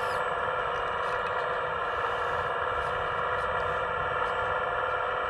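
Radio-controlled Hitachi ZX135US scale model excavator running, a steady whining drone as it works its boom and bucket, with a few faint light clicks.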